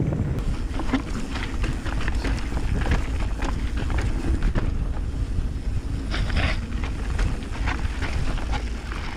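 Mountain bike riding fast over a rough trail: wind buffeting the microphone with a heavy rumble, tyres running over the dirt and the bike's chain and frame rattling in quick clicks, with a brief hiss about six seconds in.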